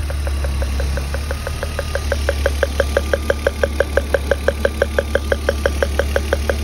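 BMW E36 inline-six engine idling with a steady low hum, broken by a regular ticking pulse about six times a second that grows stronger about two seconds in. The engine has a misfire on cylinder 6.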